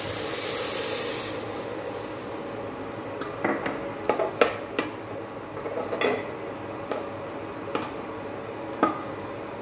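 Water poured into a hot pressure cooker hisses for the first second or so. Then a steel spoon stirs the mixture, scraping and clinking against the metal cooker in scattered knocks.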